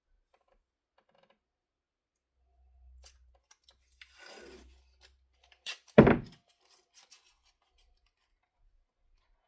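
Adhesive tape being pulled off its roll with a soft rasp, then one short, loud rip about six seconds in as a strip is torn off, with small handling clicks around it.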